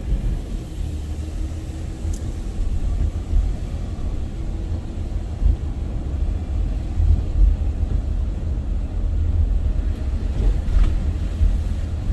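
Hurricane wind buffeting the microphone: a heavy, gusting low rumble that rises and falls unevenly.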